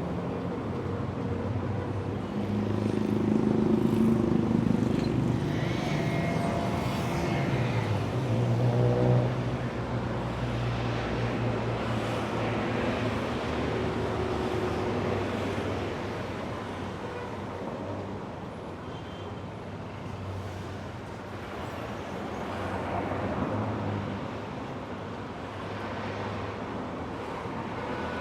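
Street traffic: a steady roar of engines and tyres, with cars passing close that swell the sound at about three to five seconds, again around nine seconds, and once more near twenty-three seconds.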